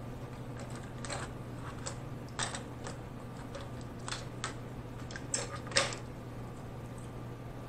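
Cooked snow crab leg shells clicking and knocking against each other and the tray as they are handled, about ten scattered light clicks with the loudest about six seconds in, over a steady low hum.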